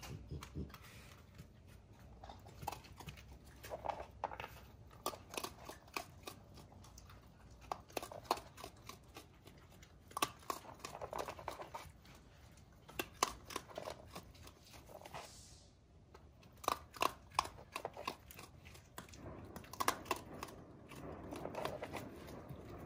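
Raccoon eating dry food pellets from a plastic dish: quick, irregular crunching and clicking as it chews and its paws move the pellets about the dish.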